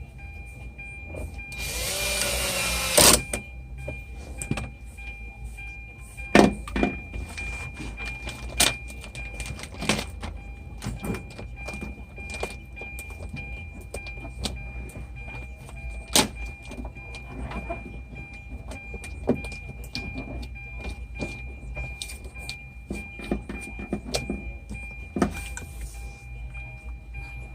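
Car door's power window motor running for about a second and a half, about two seconds in, its pitch sliding as it moves the glass. After it come scattered clicks and knocks from the door parts being handled, over a faint steady whine.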